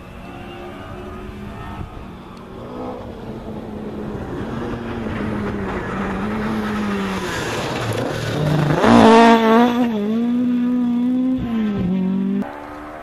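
Ford Escort rally car's engine running hard as it comes down a gravel stage. It builds in loudness, and its pitch rises and falls with each gear change. It is loudest about nine seconds in as the driver accelerates hard past, then drops away abruptly near the end.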